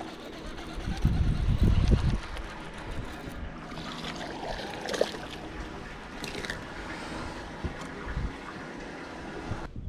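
Water splashing and sloshing at the side of a small boat as a bass is reeled in and swung aboard, with a burst of low wind rumble on the microphone about a second in.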